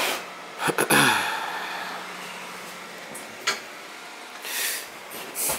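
Footsteps and handling noise inside a box truck's cargo area: a few scattered knocks, with a rushing noise about a second in that fades away over a second or so and a short hiss near the end.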